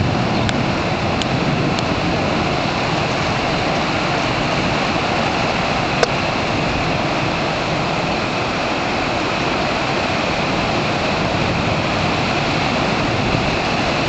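Severe thunderstorm wind and heavy rain: a loud, steady rushing noise. A few faint ticks come in the first two seconds, and one sharper click about six seconds in.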